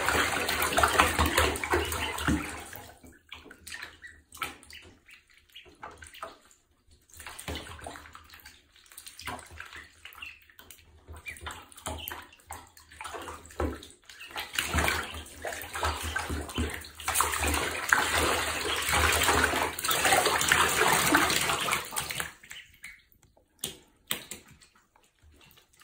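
Ducklings paddling and splashing in shallow bathtub water. There is loud splashing and sloshing for the first couple of seconds and again for several seconds past the middle, with scattered small splashes in between.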